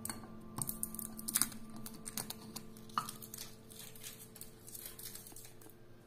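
Quiet handling sounds from a ceramic trinket box being unwrapped and set down: a few light taps and crinkles of plastic wrapping, over faint steady tones that fade away.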